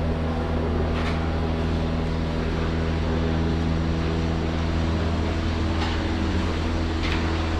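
A steady machine hum: a low drone with a hiss over it. A few faint clicks, where the ladle scrapes in the metal pot of rice.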